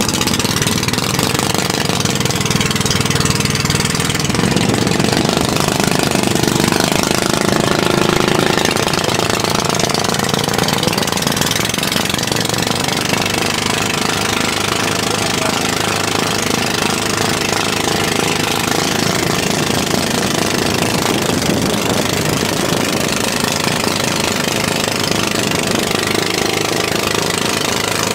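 Bangka outrigger boat's engine running steadily under way, with the hiss of water and wind over the boat.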